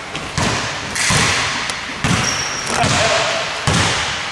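Basketball being dribbled on an indoor court, bouncing in a steady rhythm a little over once a second. A short high squeak comes about two seconds in.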